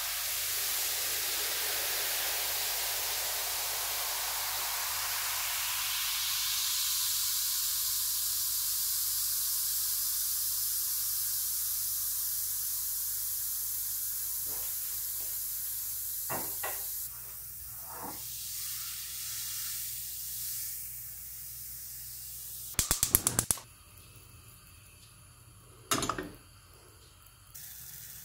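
White vinegar poured onto baking soda in a stainless steel frying pan, fizzing with a loud, even hiss that slowly fades and drops away about 17 seconds in. Later a quick burst of rapid clicks from a gas hob's igniter.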